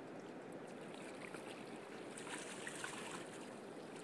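River water lapping with a brief splashing about two seconds in, as a hooked catfish is brought thrashing to the surface beside the boat.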